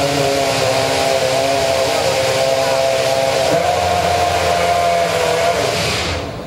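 McLaren MP4-23 Formula One car's Mercedes-Benz 2.4-litre V8 running steadily at a high, whining pitch, then cutting out and dying away near the end.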